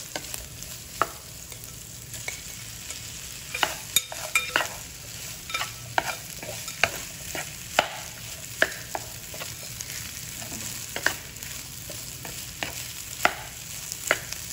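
Rice stir-frying in a hot nonstick pan: a steady sizzle broken by irregular knocks and scrapes of a wooden spatula tossing the rice against the pan.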